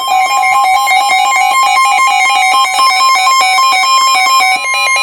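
Weather radios sounding their alert tones together ahead of a severe thunderstorm warning: loud, rapid electronic beeping that switches quickly between a few fixed pitches, with the layers overlapping.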